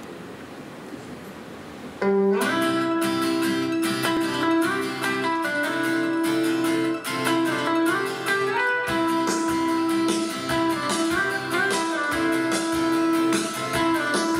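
Steady hiss, then about two seconds in an instrumental backing track starts abruptly and plays the song's introduction, with sustained notes over a plucked accompaniment.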